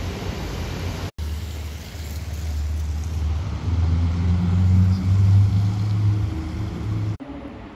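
Chevrolet Corvette's V8 engine rumbling as the car pulls away through a turn, revving up and getting louder about three seconds in, then cut off abruptly near the end. In the first second, another car passes on the wet road.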